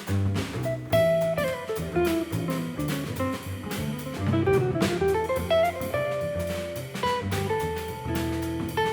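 Jazz quartet playing live: guitar, bass and drums come in together at the start, with a running melodic line that steps down and then climbs back up over walking bass notes and cymbal hits.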